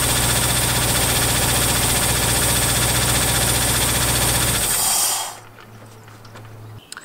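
Land Rover Defender's newly converted V8 engine running steadily on its first start, with an exhaust leak the owner says he needs to look at; the engine stops about five seconds in, leaving a faint low hum.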